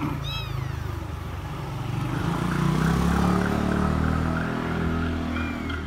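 A motor vehicle's engine running, swelling to its loudest about halfway through and easing off a little. A very young kitten gives a short high mew just after the start and another near the end.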